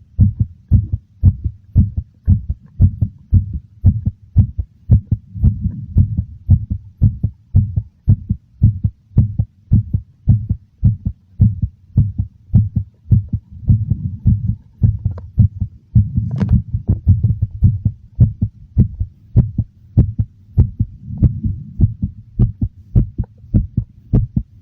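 Heartbeat, a steady run of low lub-dub thumps, slightly fast and very noticeable. A brief sharper click about sixteen seconds in.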